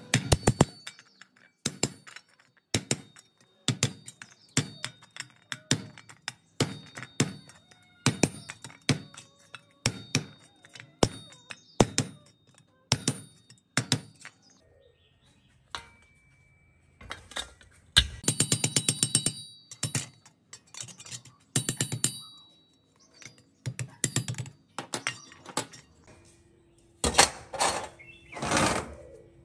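Irregular series of sharp metal knocks and clinks from hand work on the stirrer's rusted metal parts, about one or two a second. Two short metallic rattles with a ringing edge come about two-thirds of the way through.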